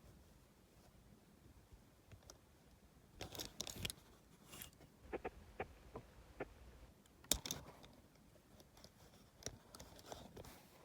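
Hands handling diecast toy cars and their packaging: faint scattered rustles and small clicks, with one sharper click about seven seconds in.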